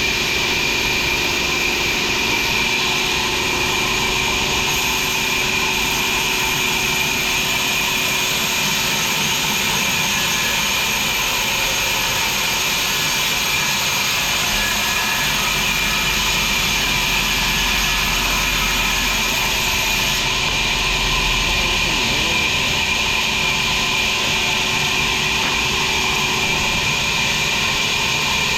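Sawmill machinery running steadily: a continuous loud mechanical hum and hiss with no breaks.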